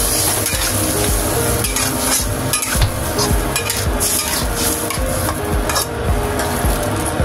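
A spatula stirs and scrapes against a wok full of minced beef and tomato sauce, with a steady sizzle from the liquid. The scrapes come over and over at an uneven pace as the water just poured in is worked through the sauce.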